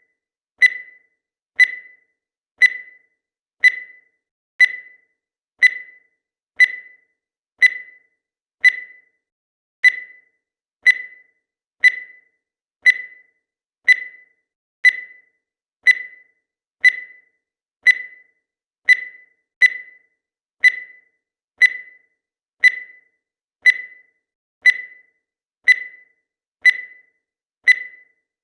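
Countdown timer's electronic tick sound effect: a short, sharp, high beep repeating evenly about once a second, each fading quickly.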